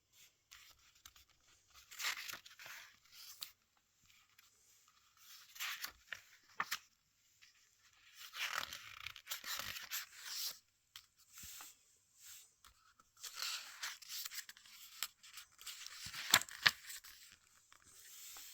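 Paper booklet pages being handled and turned in a run of separate rustles, together with a creaking chair, and one sharp click near the end.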